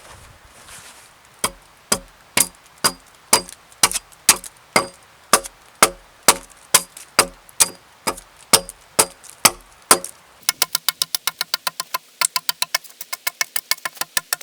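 Axe hewing a seasoned spruce log: steady, regular chopping strikes about two a second, then from about ten seconds in a faster, lighter run of strikes about four or five a second.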